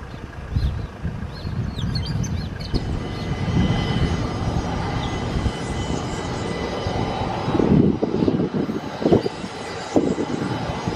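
Business jet turbofan engines running at ground idle, a steady whine over a low rumble, which grows rougher and uneven in the second half.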